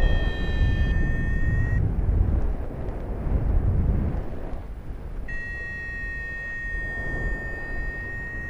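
Wind buffeting the microphone with a loud, uneven rumble. A steady high whistling tone sounds over it for about the first two seconds, then comes back about five seconds in and holds.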